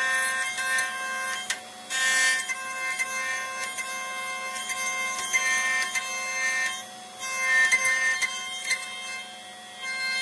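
Woodworking planer running with a steady high whine as its cutters shave an old wooden railway sleeper pushed across the table. The cutting noise swells about two seconds in and again around seven to eight seconds in, with short dips between passes.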